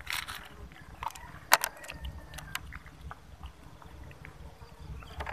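Kittens eating moistened kibble from a thin plastic tray close up: scattered small clicks and crackles of chewing and of the plastic being nudged, with one sharper click about a second and a half in, over a low background rumble.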